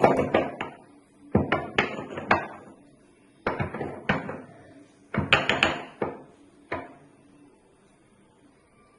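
Black peppercorns being pounded to powder: sharp knocks in short runs of two to four, with pauses between the runs.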